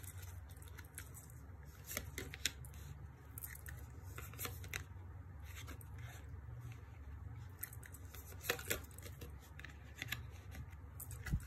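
Tarot cards being handled and dealt onto a cloth-covered table: scattered faint snaps and slides of card stock, most of them in the first few seconds and a couple more near the end, over a low steady hum.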